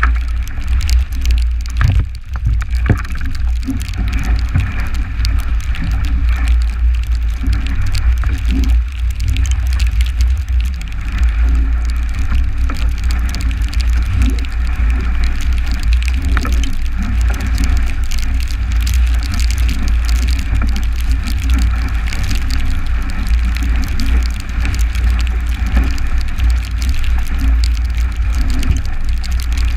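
Strong wind buffeting the boat-mounted camera's microphone as a loud, constant deep rumble, with water rushing and splashing along a 29er skiff's hull as it sails fast through chop.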